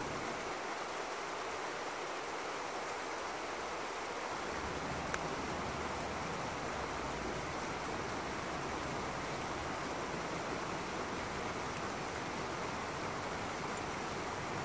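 Small woodland stream spilling over rocks in a short waterfall: a steady rush of water. There is one faint tick about five seconds in.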